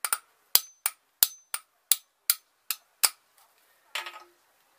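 Claw hammer knocking the old bolts out of a Classic Mini connecting rod, steel striking steel. There are about nine sharp blows at roughly three a second, some with a brief ring, then a short metallic clatter about four seconds in.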